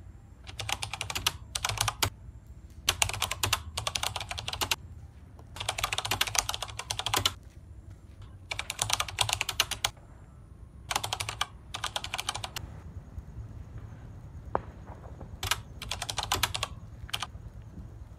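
Computer keyboard typing sound effect: rapid key clicks in bursts of up to about a second and a half, with short pauses between, over a faint steady hum.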